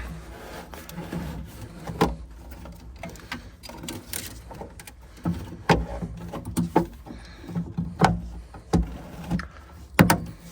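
Irregular knocks, clicks and scrapes of a gas boiler's sealed air box cover being fitted back on and fastened.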